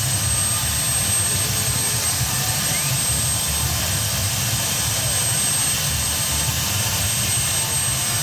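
UH-60 Black Hawk helicopter's turbine running steadily on the ground: a constant high whine over a low rumble.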